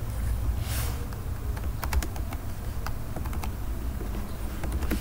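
Computer keyboard keys clicking in irregular runs of typing, over a low steady hum.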